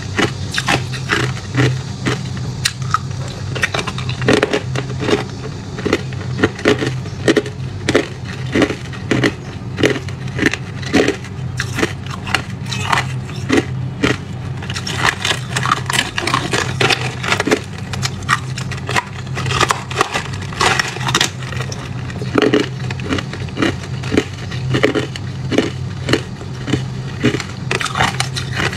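Hard ice being bitten and chewed: a fast, irregular run of sharp crunches and cracks, several a second, over a steady low hum.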